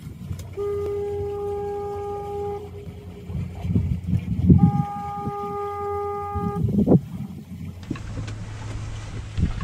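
Owl's Head Light fog signal sounding two steady blasts of about two seconds each, a couple of seconds apart, over a low rumble.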